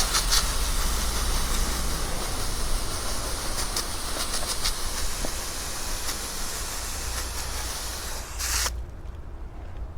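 Portable sawmill running with a steady hissing noise over a low engine hum. Near the end the hiss cuts off suddenly, leaving the engine running lower.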